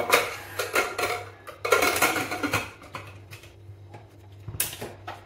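Pressure cooker lid being fitted: metal clinking and scraping as the lid is worked into the pot, then one sharp click about four and a half seconds in as the handles are pressed together.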